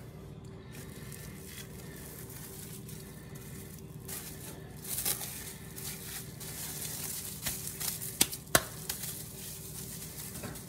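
Plastic cling wrap crinkling as it is folded and pressed by hand around a ball of pie dough. The crinkling grows busier partway through and has a few sharp crackles near the end, over a steady low hum.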